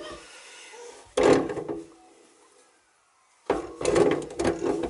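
White PVC sink drain trap being handled by hand: plastic rubbing and knocking in two bursts, about a second in and again from about three and a half seconds in.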